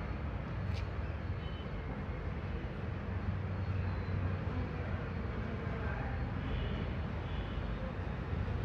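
Steady low rumbling background noise, with a faint click just under a second in.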